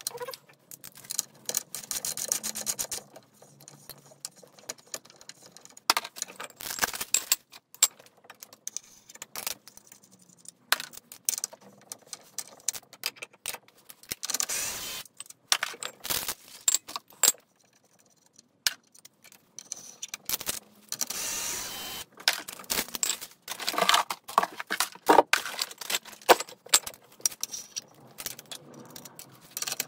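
Cordless drill with a socket running briefly to unscrew the brass valve from an aluminium cream charger flask, amid irregular metallic clinking and clattering as the tools and the flask are handled.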